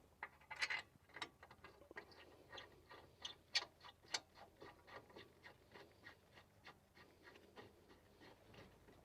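Faint, irregular metallic clicks and ticks of hand tools and brake parts being handled, a few louder ones in the first half, then lighter clicks about three or four a second.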